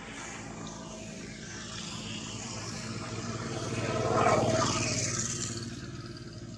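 A motor vehicle passing by: its engine and road noise grow louder to a peak about four seconds in, then fade.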